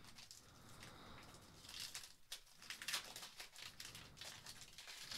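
Faint crinkling of a trading-card booster pack's foil wrapper as it is torn open and pulled away from the cards, in scattered, irregular crackles.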